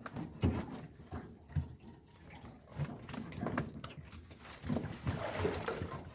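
Irregular knocks and bumps with some water sloshing as a fish trap is handled in a small boat.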